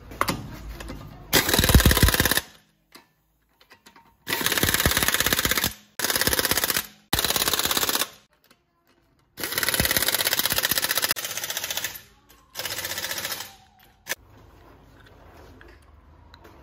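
Impact wrench hammering on the wheel bolts of an Opel Insignia, in about seven short bursts of rapid rattling of one to two seconds each, with pauses between them.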